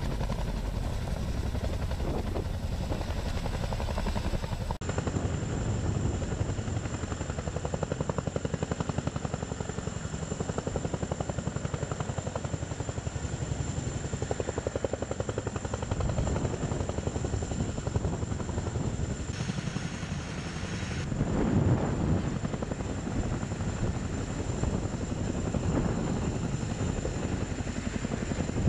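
Boeing CH-47 Chinook tandem-rotor helicopter in flight: a fast, steady beat of rotor blades with a steady high whine over it. The recording cuts to another take of the same sound about five seconds in.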